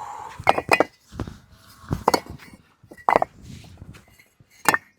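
Bricks being handled and set down on one another, giving about seven sharp, irregular clinks and knocks.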